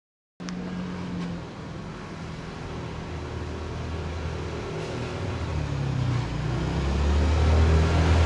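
Low engine hum of a motor vehicle in a street, starting abruptly about half a second in and growing steadily louder.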